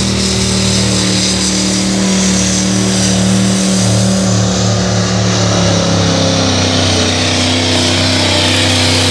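Diesel engine of a pulling truck running hard under load as it drags the weight sled down the track, a loud, steady engine note.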